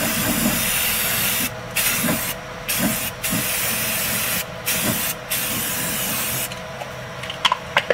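Aerosol spray can of self-etching primer hissing as it sprays in several bursts with short breaks between them, stopping about a second and a half before the end.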